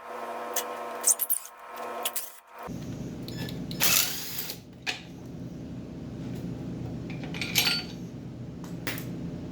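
A power tool whirring in short bursts of about a second each. It then gives way to a steady low hum, with loose metal parts clinking sharply twice.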